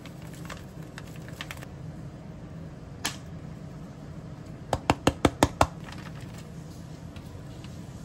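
A quick run of about six sharp taps, a little past the middle, from a seasoning bottle being shaken and tapped over a frying pan. Before it come a few faint ticks and a single click, and a steady low hum runs underneath.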